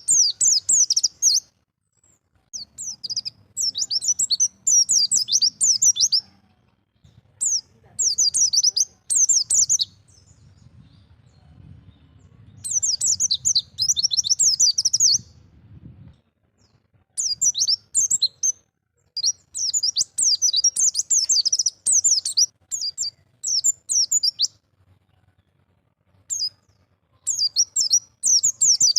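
Pleci (white-eye, Zosterops) singing its wild-style 'ngalas' song: bouts of rapid, high twittering notes, each a second to several seconds long, with short pauses between them.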